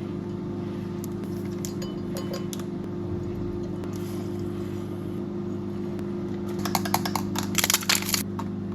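A steady low mechanical hum, with a cluster of light glassy clinks and taps about seven to eight seconds in.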